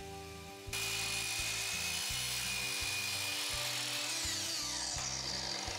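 Electric sliding compound miter saw starting up and crosscutting a pine board, a steady high whine with sawing noise that starts suddenly about a second in; near the end the whine falls in pitch.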